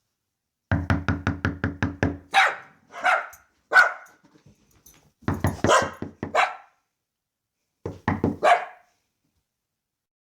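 A rapid series of knocks on a door, about six a second, answered each time by a dog barking several times; the knock-then-bark pattern comes three times, the later knock runs shorter.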